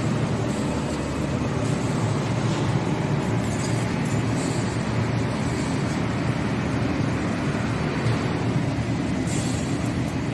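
Automatic wire clothes-hanger forming machine running: a steady, even mechanical noise with no distinct separate strokes.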